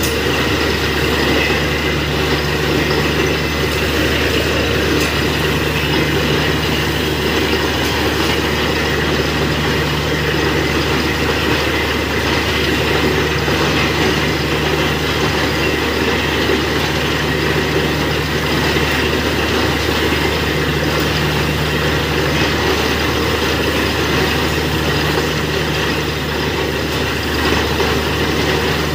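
Truck-mounted borewell drilling rig running steadily, its engine and compressor giving a constant low hum with a deeper tone that swells and drops every few seconds. Over it is a broad rushing, rattling noise while water and mud are blown up out of the borehole.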